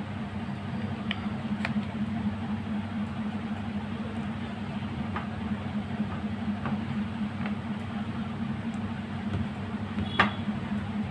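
Steady low hum in the room, with scattered light clicks and one sharper click about ten seconds in as wires and test leads are handled.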